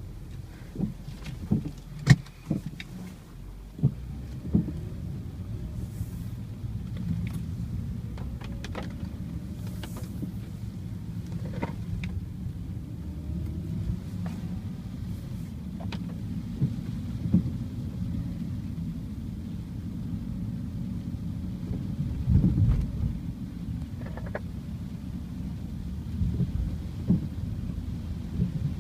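2007 BMW 328xi steering making an odd noise: irregular sharp clicks and knocks over the car's steady low rumble, with a faint whine that rises and falls at times.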